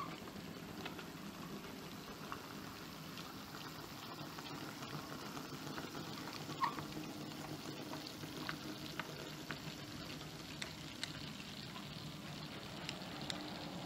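Model diesel locomotive and a train of flat wagons running along model railway track: a faint steady hum with light clicking and rattling of wheels over the rail joints, one click a little sharper about halfway through.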